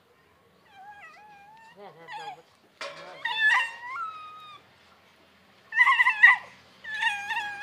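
A small animal's high, wavering whining cries in several bouts, faint at first and loudest in the last two seconds.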